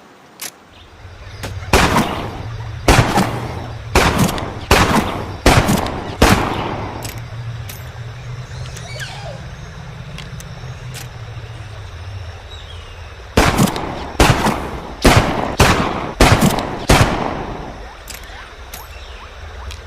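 M1917 .45 ACP revolver firing two strings of six shots, about one shot a second, each report echoing and fading. A steady low rumble runs under the shots from about a second in.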